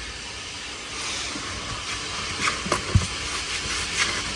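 Coin-operated car-wash vacuum running with a steady rush of air, a few sharp knocks over it as the nozzle bumps against the car's interior.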